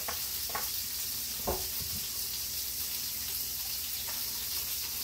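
Deer tenderloin frying in a cast iron skillet with oil and butter: a steady sizzle, with a few faint clicks over it in the first two seconds.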